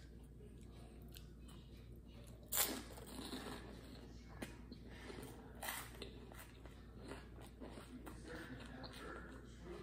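A person chewing a bite of soft frosted cupcake with faint wet mouth sounds, and two sharper sounds about two and a half and five and a half seconds in.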